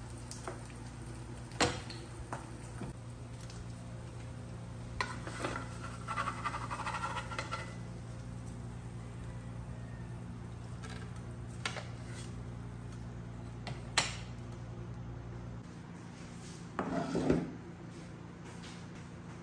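Kitchen handling sounds: scattered clinks and knocks of a glass jam jar, knife and plate, a wooden spatula against a frying pan, and a louder knock and scrape near the end as a plate goes down on a wooden table. A steady low hum runs underneath and stops about three-quarters of the way through.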